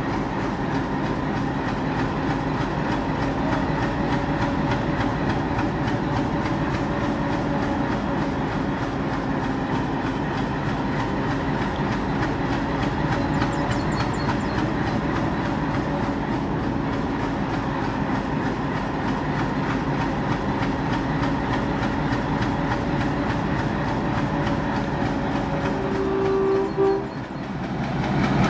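ALCO DL560C V16 four-stroke diesel engine of a WDG3A locomotive idling with a steady hum. Near the end a short higher note sounds, the engine sound dips briefly, then it picks up again.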